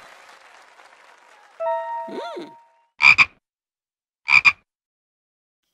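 Frog croaking twice, each croak a quick two-part "rib-bit", about three and four and a half seconds in. Shortly before the first croak there is a brief pitched sound with a swooping glide.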